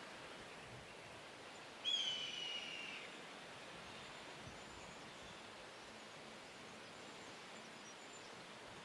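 Faint, steady outdoor ambience, with a single bird call about two seconds in: one high call, falling slightly in pitch and lasting about a second.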